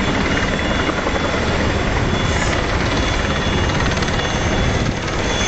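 Helicopter coming in low and descending to land, a steady loud rotor and engine noise.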